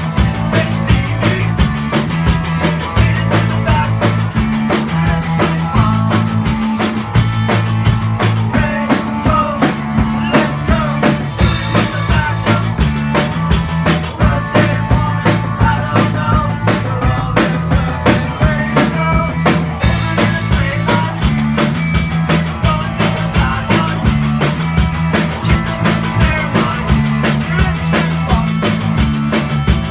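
A band playing live music with a drum kit keeping a steady beat under sustained bass notes. The bright top end drops away twice for a few seconds in the middle.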